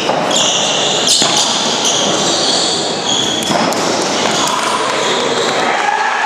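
Padel ball struck by paddles and bouncing on an indoor court during a rally: a few sharp hits, the clearest about a second in and again a few seconds later, over a constant loud din.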